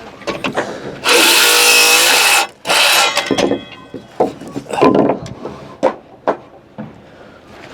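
A power saw cuts through framing timber in one loud cut lasting just over a second, with a shorter second cut right after. Several separate knocks of wood on wood follow.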